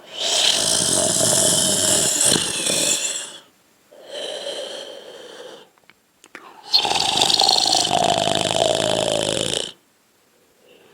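A person snoring: two long, loud snores of about three seconds each, with a shorter, quieter snore between them.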